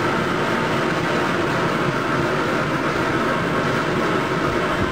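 Homemade Babington-style waste oil burner running vertically: a steady rush of compressed air and burning atomized oil at the nozzle.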